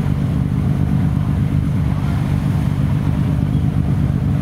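Shannon-class lifeboat's twin diesel engines idling steadily as the boat lies alongside, a deep even rumble.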